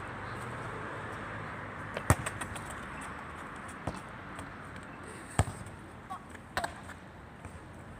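A football being kicked and bouncing on stone paving: a few sharp thuds, the loudest about two seconds in and again past five seconds, over a steady city background hum.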